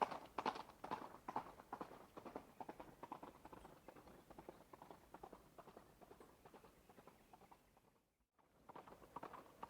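Horse hooves striking the ground at a run, a steady beat of hoofbeats that fades away over several seconds. It drops to silence about eight seconds in, then the hoofbeats start again and grow louder near the end.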